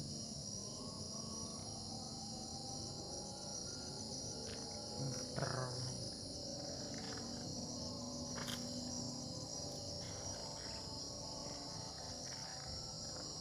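A steady, high-pitched chorus of insects trilling without a break. A couple of brief clicks and a short low knock about five and a half seconds in sit over it.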